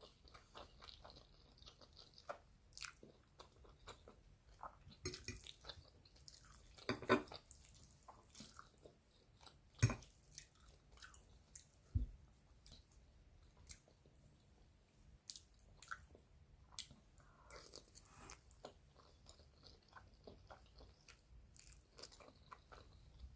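A person chewing spaghetti close to the microphone: soft, wet mouth sounds and small clicks. A louder mouth sound comes about seven seconds in, and two sharp knocks come near ten and twelve seconds.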